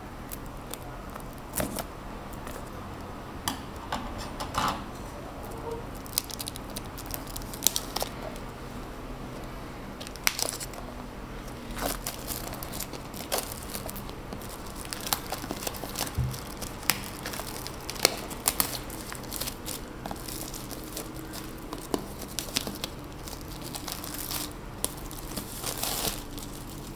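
Product packaging being handled and opened: irregular crinkling and tearing of wrapping, with scattered sharp clicks and taps.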